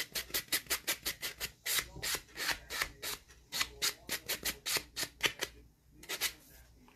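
Quick back-and-forth strokes of a hand nail buffer rasping across dip-powder nails, about five strokes a second. The strokes pause briefly near the end, then come back for a few more.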